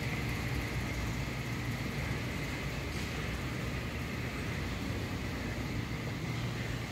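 Steady low hum with an even hiss: the room tone of a large hall, with no distinct events.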